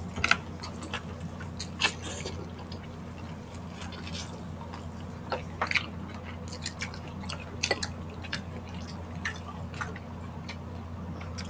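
Close-miked chewing and wet mouth sounds of eating grilled meat by hand: scattered smacks and clicks over a steady low hum.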